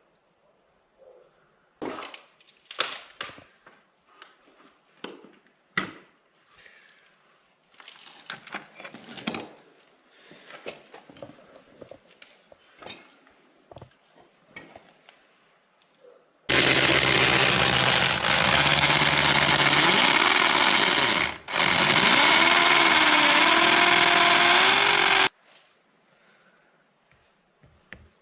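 A power tool runs in two loud bursts of about five and four seconds, with a brief stop between them and a pitch that wavers. Before it come scattered light clicks and knocks of tools and parts being handled.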